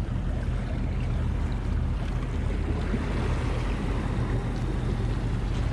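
A boat's engine running steadily with a low hum, under wind and water noise.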